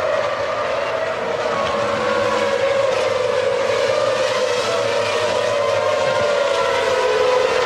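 Formula One car engine running at a steady pitch that sinks slowly over several seconds, with no sudden changes.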